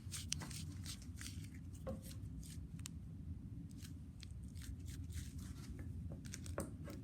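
Fidget toys being handled, making irregular clicks and crackles over a steady low hum.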